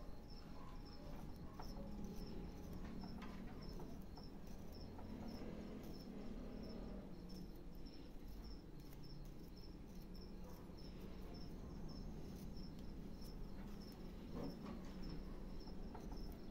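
Small hand carving blade paring and scraping a block of wood in short, quiet cuts. A cricket chirps steadily in the background, about three chirps a second.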